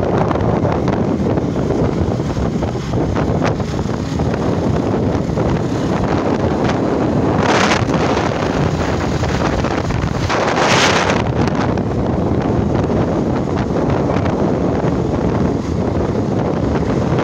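Wind buffeting the microphone of a phone on a moving motorcycle, a loud steady rumble over the sound of the ride. Two short, louder hisses come about halfway through.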